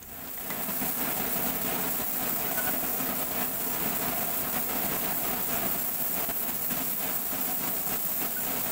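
Gravity-feed spray gun spraying paint, a steady hiss of compressed air atomising the paint onto a plastic panel.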